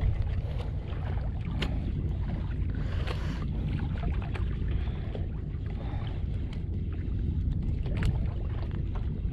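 Wind buffeting the microphone over water slapping against the hull of a small outrigger fishing boat (jukung) at sea, with a few light clicks.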